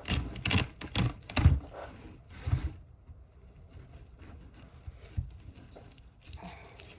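Groceries and their plastic packaging being handled: a handful of sharp knocks and clicks with rustling in the first three seconds, then only a few faint clicks.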